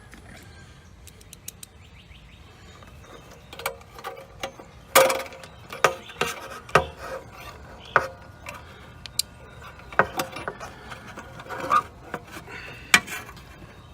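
Hand tools and a screw clicking, knocking and rubbing against the sheet-metal cabinet of a York condenser while the run capacitor is fastened back in place. After a quiet start, the knocks come about once a second from about four seconds in, loudest about five seconds in and near the end.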